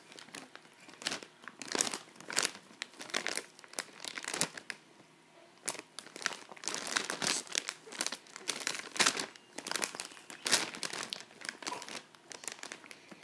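Family-size Doritos foil chip bag crinkling and rustling in irregular bursts as it is moved and pressed about, with a short lull about five seconds in.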